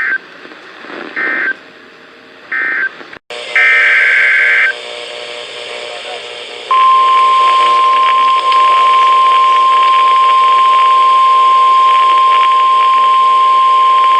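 NOAA Weather Radio SAME digital data bursts: three short buzzy bursts about a second apart, the end-of-message code for the previous alert, then after a brief dropout a longer burst of header data for the next alert. About seven seconds in, the steady 1050 Hz warning alarm tone starts and holds.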